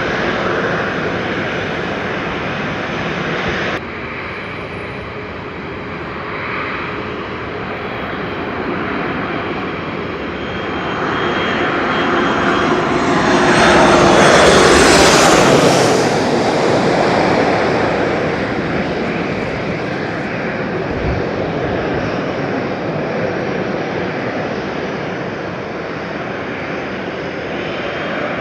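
An airliner's engines passing close by. The noise swells to its loudest about halfway through, with a sweeping pitch as the aircraft goes past, then slowly fades.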